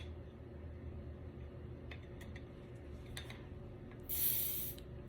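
A carbonated drink being opened: a few small clicks about two and three seconds in, then a short hiss of escaping gas about four seconds in.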